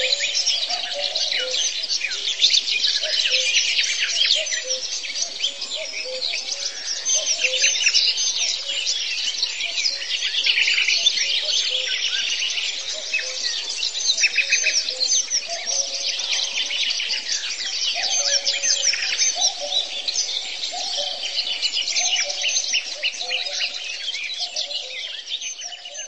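A dense chorus of many songbirds chirping and trilling at once, with a lower repeated call running underneath. It eases off in the last seconds.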